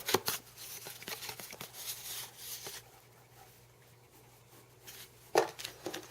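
Trading cards being handled and set down on a table: soft rustling and light taps during the first few seconds, then a pause, and one louder tap about five seconds in.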